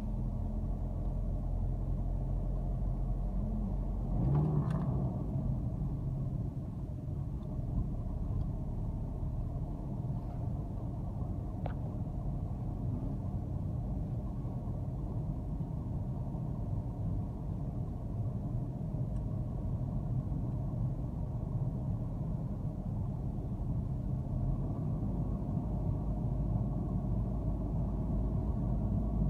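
A moving car's engine and road noise heard from inside the cabin: a steady low rumble, briefly louder about four seconds in.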